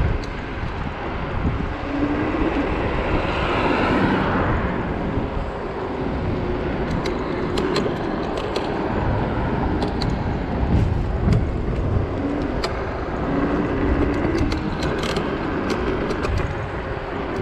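Steady low wind rumble and road-traffic noise on a body-worn camera's microphone, with many scattered light clicks and rattles.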